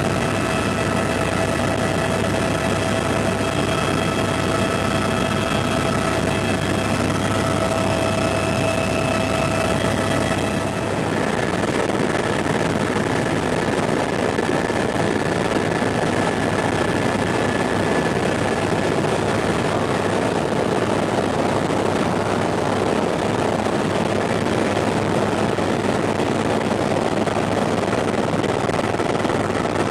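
Helicopter turbine and rotor noise heard from inside the cabin in steady flight: a dense, even rush with a low hum and a high whine of several tones. About eleven seconds in the whine changes, leaving one fainter tone over the same rush.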